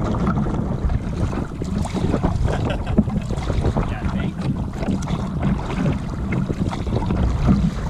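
Wind noise on the microphone over choppy lake water splashing and slapping against the hull of a moving Kevlar canoe, with frequent small slaps all through.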